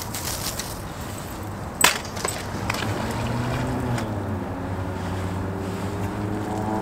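A sharp knock about two seconds in, then the hum of a small fishing boat's motor out on the river, its pitch dipping and then rising again near the end.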